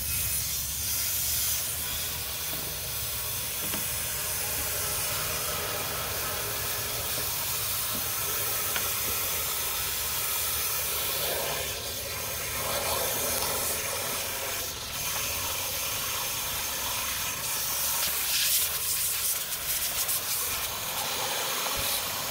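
Water from a garden hose running steadily into the 4.0 engine block through the open thermostat housing, flushing out the old coolant.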